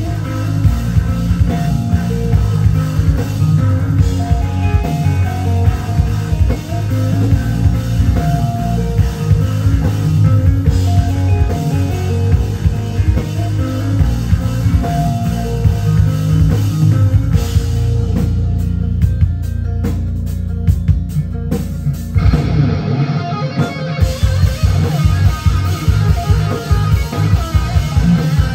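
Live instrumental rock band playing: electric lead guitar over bass guitar and a drum kit. Past the middle the band thins out for a few seconds, then comes back in at full strength.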